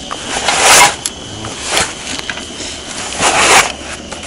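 Fabric blade cover being pulled off a titanium hand ice auger's blades: three bursts of rustling and scraping, the first and last loudest.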